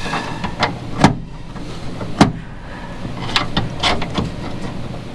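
A few scattered knocks and clicks from parts being handled under the dash of a Willys jeep. The loudest comes about a second in and another just after two seconds, with lighter ones later.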